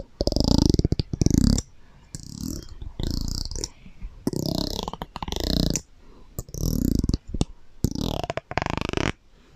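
ASMR trigger sounds made close to the microphone under an echo effect: a series of separate bursts, each half a second to a second and a half long, about eight in all.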